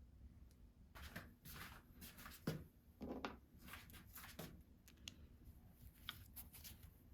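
Faint handling sounds of bicycle brake parts and tools being worked on by hand: soft rustles and small clicks, with one sharper knock about two and a half seconds in.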